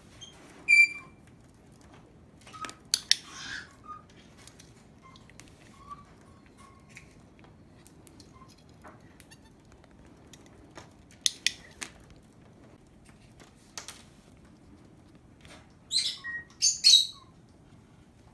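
Lovebird giving short, high chirps, once about a second in and in a quick loud cluster near the end, among scattered sharp clicks and light taps of plastic rings on the table and a plastic lid.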